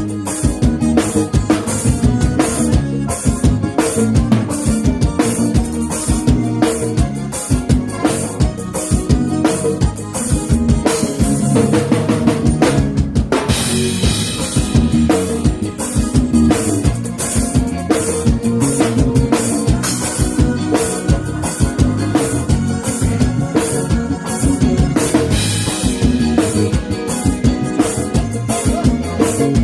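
Drum kit playing a steady, driving forró beat, kick and snare to the fore, over the rest of a live band at a soundcheck.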